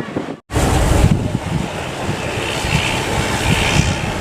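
Wind buffeting the microphone in rumbling gusts over the steady noise of surf. The sound cuts out briefly about half a second in.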